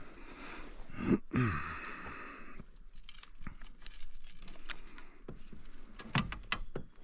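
Handling noises as a smallmouth bass is lifted out of a rubber-mesh landing net in a kayak: rustling for a second or two, then scattered clicks and taps of gear against the kayak.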